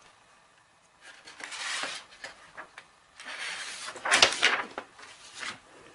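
A sheet of paper sliding and rustling as it is pulled across and lifted off a tabletop, in two stretches, the louder one about four seconds in.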